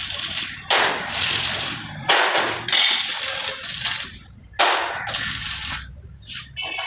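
Stick-welding arc crackling and hissing in short runs, about three of them, each striking up suddenly and dying away after a second or two, as tack welds are laid on steel angle and flat bar.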